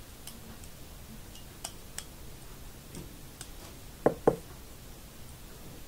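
Light scattered clicks and ticks of a plastic loom hook and rubber loom bands working against the metal tines of two forks, with two louder clicks in quick succession about four seconds in.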